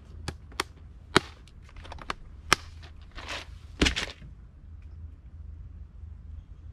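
Clear plastic tackle box being handled and shut: a series of sharp plastic clicks and snaps, with some rustling between them, over the first four seconds.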